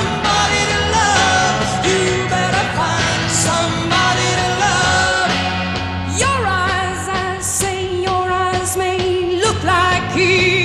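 1960s psychedelic rock song: a woman's lead vocal over electric guitar, bass guitar and drums with cymbal crashes.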